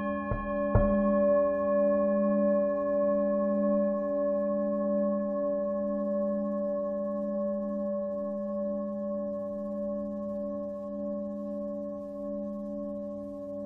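Lingam singing bowl struck twice in quick succession within the first second, then ringing on in a long, slowly fading tone with several overtones and a steady wavering beat.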